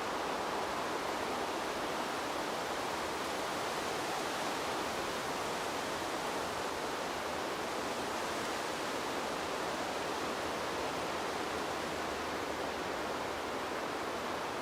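Wind sound effect: a steady rushing hiss of wind, with no gusts or breaks.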